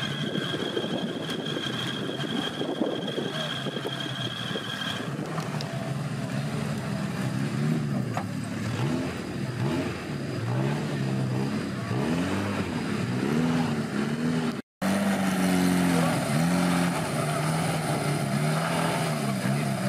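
Off-road 4x4 trial vehicle's engine revving up and down again and again in short bursts, working the vehicle over the course obstacles.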